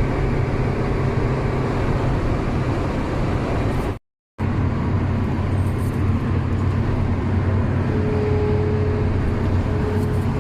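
Steady road noise and low engine hum of a car driving on a long highway run, cutting out completely for a moment about four seconds in.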